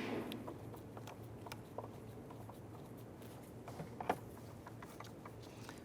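Faint scattered clicks and light knocks of a screw being driven with a screwdriver into a plastic door panel, behind the interior door handle. A sharper click comes about four seconds in.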